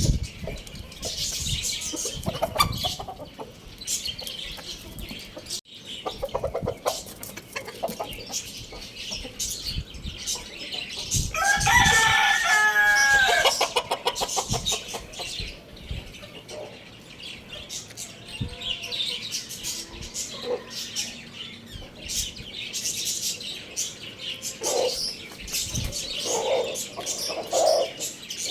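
A rooster crows once, a loud call of about two seconds near the middle, over a busy background of short bird chirps and clicks.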